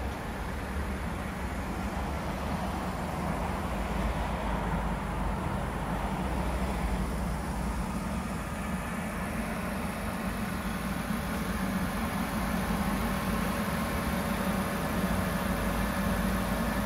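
Mercedes CLC 200's petrol four-cylinder engine idling steadily with the bonnet open.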